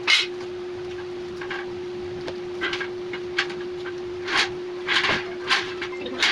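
Steel rack parts knocking and clinking together as they are fitted, about eight short, sharp knocks at irregular intervals, the first the loudest, over a steady low hum.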